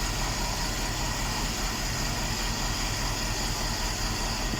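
GMC Yukon XL V8 engine idling steadily while misfiring on cylinders 1, 3, 5 and 7, a fault later traced to broken and shorted engine wiring.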